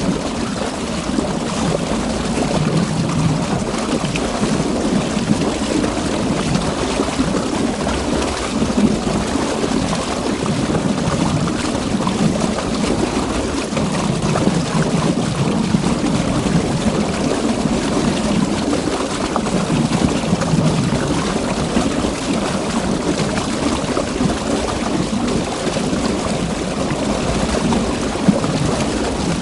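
River water flowing and burbling steadily, a dense rushing of water that swells and eases every few seconds.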